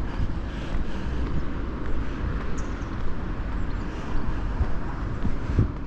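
Steady low rumble of outdoor street background noise, with no single clear event standing out.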